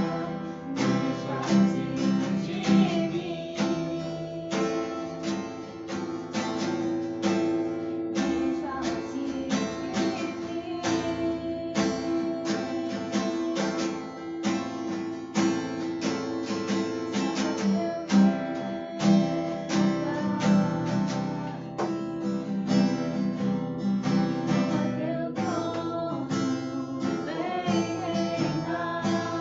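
Acoustic guitar strummed in a steady rhythm, playing a worship song.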